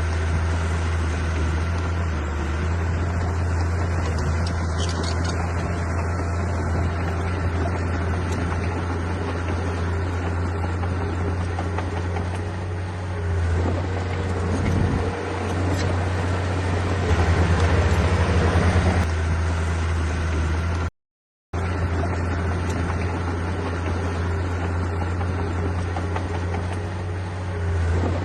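Heavy diesel engine of an earthmoving machine running steadily under work, a deep, constant hum that grows louder for a couple of seconds just past the middle. The sound cuts out completely for about half a second about three-quarters of the way through, then resumes.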